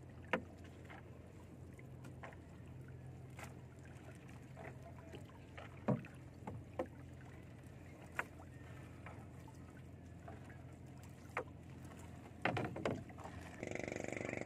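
Gill net being hauled by hand into a small wooden outrigger canoe: scattered light knocks and clicks as the net's floats and sinkers hit the hull, with a few knocks close together near the end.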